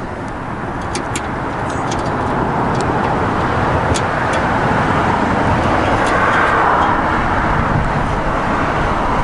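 Road traffic noise: a vehicle's tyre and engine sound building slowly to a peak about two-thirds of the way through and easing off, with a few faint light clicks.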